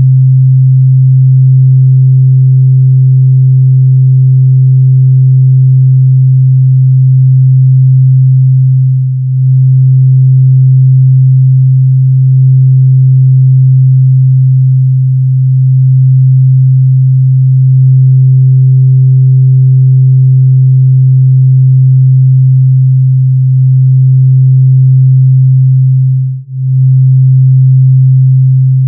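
A loud, steady, low electronic drone tone from a drone-music track, with a fainter higher tone swelling in and out above it. The drone dips briefly about nine seconds in and drops out for a moment near the end.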